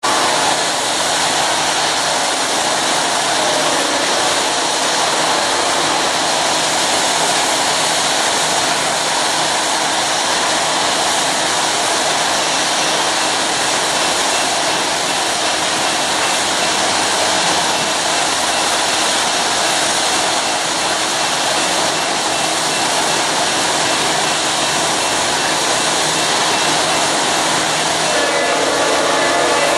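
A steady, loud rushing noise throughout. Near the end a grade-crossing bell starts ringing as the crossing gates come down.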